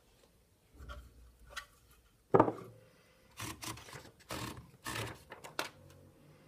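Olivetti College portable typewriter being handled: two light clicks, one sharp knock, then four short sliding scrapes.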